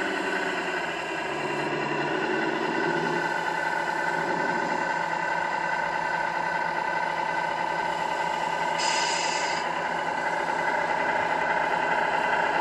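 MAN RC model truck running, its sound module playing a steady simulated truck-engine drone through a small speaker, with a short hiss about nine seconds in.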